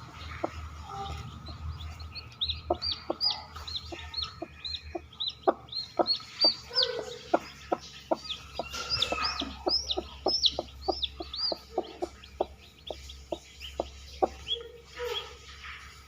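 Newly hatched chicks peeping, many short high chirps in quick succession, with a run of light ticks or taps about three a second through the middle.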